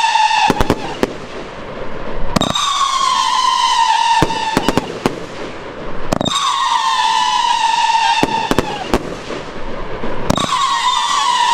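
Hellfire Thunder firework going off in a string of shrill whistles. Each whistle starts suddenly, slides slightly down in pitch and lasts a few seconds, with a new one about every four seconds and short bursts of sharp bangs in between.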